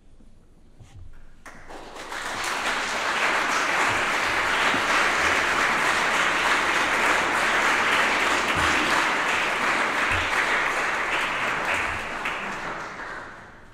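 Small audience applauding: the clapping starts about a second and a half in, swells quickly, holds steady, and dies away near the end.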